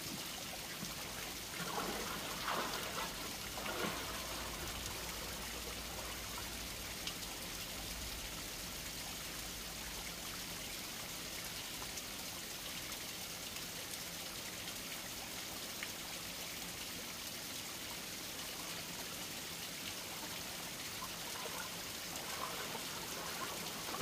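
Clear mountain stream flowing steadily over rocks, with a few louder moments a few seconds in.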